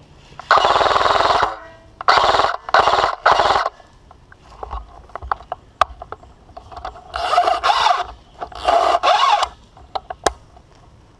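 Airsoft rifle firing bursts on full auto: one long burst, three short ones, then two more near the end. Single sharp clicks and snaps come between the bursts.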